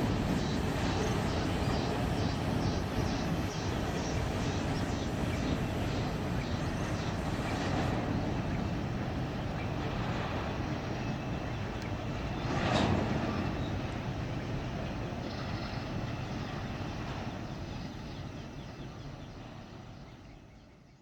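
Train running past: a steady rumble of wheels on rail, with a regular clicking of about three a second for the first several seconds and a brief louder swell about two-thirds of the way through, then dying away at the end.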